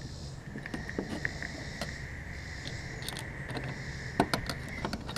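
Light clicks and knocks of hardware and tools being handled, with one sharper knock a little past four seconds in. A steady high-pitched whine of unclear origin runs under them from about half a second in.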